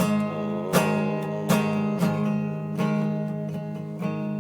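Acoustic guitar strumming chords at a slow, even pace, about one stroke every three-quarters of a second.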